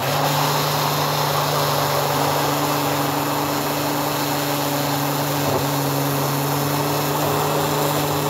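Oster Dura Classic blender motor switching on and running steadily at one speed, blending a full jar of thick latex paint into a smooth mix.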